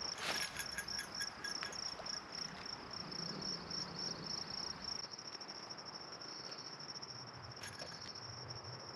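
Insects chirping in a steady, high-pitched pulsing trill that smooths into a more even buzz about halfway through. A sharp click followed by a short run of faint ticks comes just after the start.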